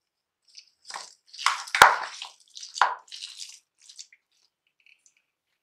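A hand squeezing and mixing mashed potato and peas in a steel bowl: irregular wet squishing, with a sharp click about two seconds in.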